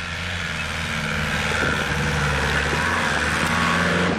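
Off-road 4x4's engine running hard under load, growing steadily louder.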